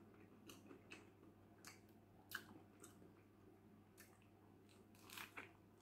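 Faint sounds of a person biting into and chewing a burger, heard as scattered soft mouth clicks and squishes, one sharper about halfway through and a few more near the end.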